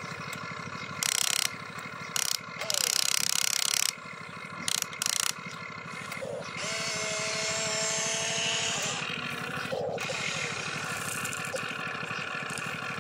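Electric motors and gearboxes of a toy RC excavator whirring and ratcheting in several short, loud bursts as the arm and bucket dig. This is followed by a longer steady whine as the upper body swings the bucket round over the dump truck.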